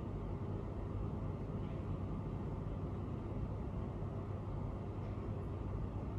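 Steady room tone: an even background hiss with a constant low hum, and no distinct event.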